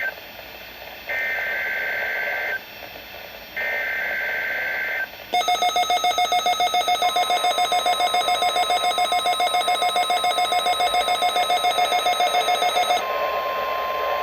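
NOAA Weather Radio emergency alert test: two warbling SAME digital header bursts, each about a second and a half with short gaps between. Then a weather radio receiver's rapid pulsing alarm beeps for about eight seconds. The steady 1050 Hz warning alarm tone joins about seven seconds in and carries on alone after the beeping stops, near the end.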